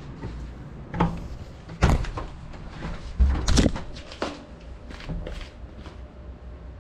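A series of knocks and clatters from handling, as the FPV drone carrying the camera is set down on a tiled floor; the loudest comes about three and a half seconds in.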